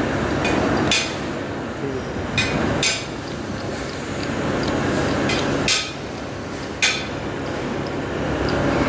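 Sharp metal-on-metal knocks and clinks, about five of them spread unevenly, from work on a lathe's clutch parts, over a steady machine hum.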